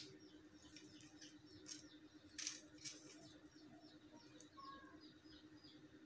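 A small bird chirping faintly in short high notes, about three a second, over a low steady hum. Plastic gift ribbon and packing strap rustle and crackle as they are handled, loudest about two and a half seconds in.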